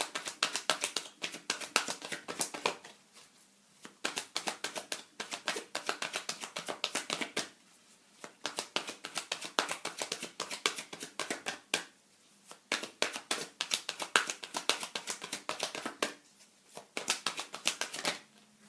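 A deck of oracle cards being shuffled by hand: rapid papery clicking and slapping in about five runs of a few seconds each, with short pauses between them.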